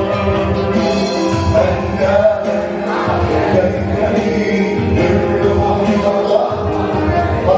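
Arabic Christian worship music: a band with sustained instrumental chords and low rhythmic bass, with singing voices.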